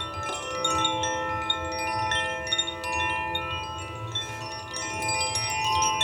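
Metal chimes being played, many bright tones struck in quick succession and ringing on over one another, over a few longer-held lower tones.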